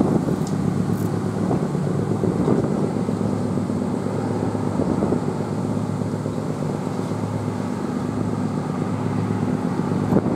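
Steady low machinery drone of a large warship and the harbour tug at her bow under way, a constant hum with no change in pitch.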